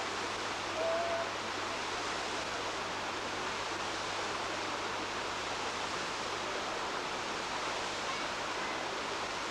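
Steady sound of running water from a rocky woodland stream.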